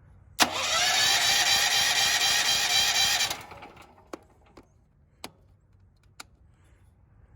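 Firman petrol generator's engine cranked by its starter for about three seconds with a steady whirring, stopping without catching: the engine fails to start. A few sharp clicks follow in the quiet.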